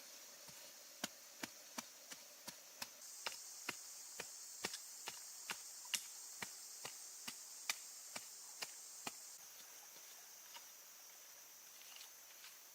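A series of sharp chopping knocks at an even pace, about two and a half a second, stopping about nine seconds in, over a steady high hiss.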